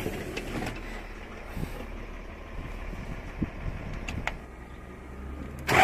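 A low background rumble with a few light clicks in the cab. Right at the end the Cat 3054C four-cylinder diesel is started: the starter engages and the engine catches, its first start after the injection pump has been refitted.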